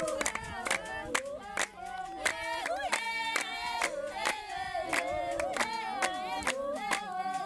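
A group of people singing together, several voices in unison, with steady rhythmic hand clapping at about three claps a second.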